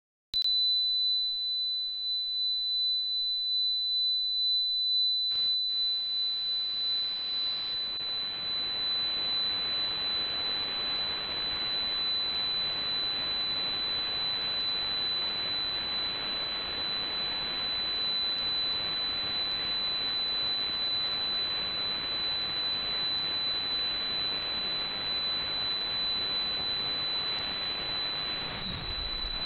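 Demodulated AM audio from a software-defined radio tuned near 100 kHz: a steady high-pitched tone begins suddenly just after the start, over a hiss. After a click about five seconds in, the hiss grows louder and stays.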